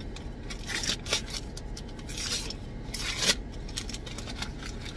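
White paper wrapping on a book being torn open and rustled by hand: irregular tearing and crinkling, loudest a little past three seconds in.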